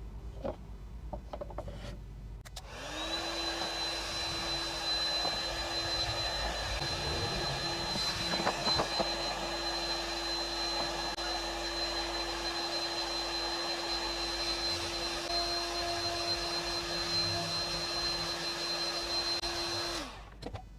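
A small electric motor spins up about two and a half seconds in, runs at a steady speed with a high whine, then winds down near the end.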